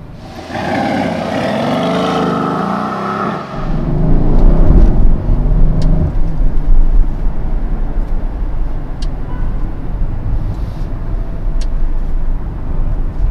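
Mercedes-AMG GLE 63 S's 4-litre twin-turbo V8 pulling away under throttle, heard from inside the cabin. Its note rises and falls for the first few seconds, then turns into a loud, deep rumble from about three and a half seconds in.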